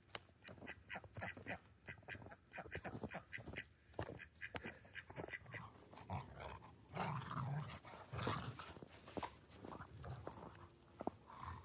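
A dog close by making quick, short, breathy sounds several times a second, then a few louder, lower sounds in the second half.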